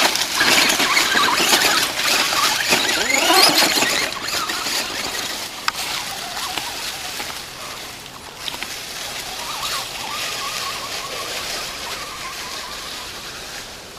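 Traxxas Stampede RC truck's brushless electric motor whining, its pitch rising and falling with the throttle, while the tyres and chassis rattle over rocks and dry leaves. After about four seconds it grows fainter as the truck drives off.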